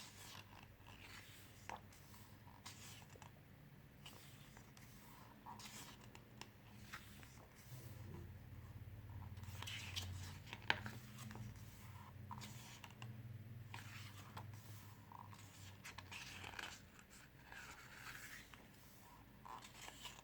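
Faint rustling and soft taps of a glossy photobook's pages being turned and handled, with one sharper tap about halfway through.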